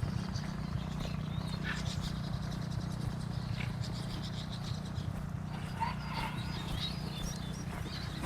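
Birds chirping and calling in short high notes over a steady low drone.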